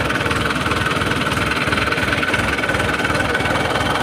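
Ashok Leyland Dost pickup's three-cylinder diesel engine idling steadily, with an even, rapid low pulsing.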